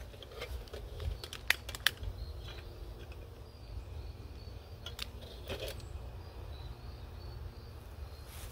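Clicks and light metal handling as a red hurricane oil lantern is lit with a long-nosed lighter and its wick adjusted: two sharp clicks about a second and a half in, a few fainter clicks and taps later, over a steady low rumble.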